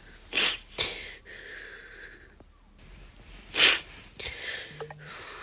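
A young woman crying: a few sharp, wet sniffs and shaky breaths. The loudest sniff comes a little past halfway.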